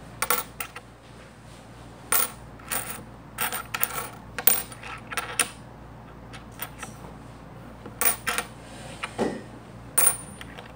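US quarters clinking against each other and a hard tabletop as they are picked up, turned over and set down one at a time. Irregular sharp clinks, some in quick little clusters, about one every second or so.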